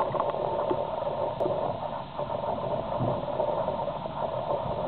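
Low, irregular thunder rumbling under a steady hiss of rain.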